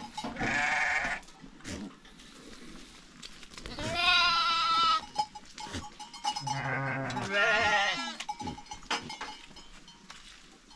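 Young goats bleating, several loud, quavering calls: one about a second in, a long one around four seconds, and two more close together between six and eight seconds.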